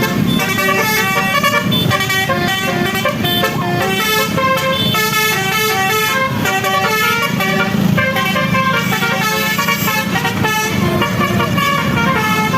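Bus telolet (basuri) horn playing a melody: a fast tune of short stepped notes, several horn tones sounding together, over a low hum.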